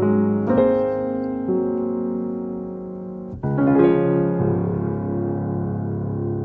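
Background piano music: slow, sustained chords and notes, with a fresh chord struck about halfway through.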